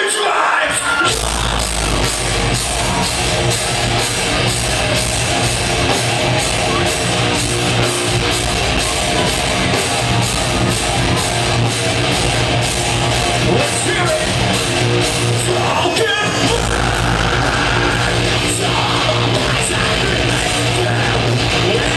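Live metalcore band playing loud with distorted electric guitars, bass guitar and drums, with vocals over the top; the heavy low end of the bass and kick drum comes in about a second in.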